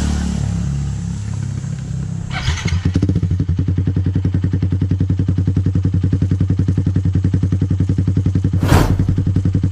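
Yamaha Sniper 150's single-cylinder four-stroke engine starting about two and a half seconds in through a Yoshimura Alpha exhaust with the silencer removed, then idling with a loud, even, rapid exhaust beat. There is one sharp knock near the end.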